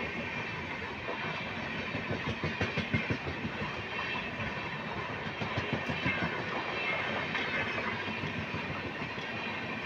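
Indian Railways express train's passenger coaches passing by: a steady rush of wheel and rail noise with rapid clattering of wheels over the rail joints.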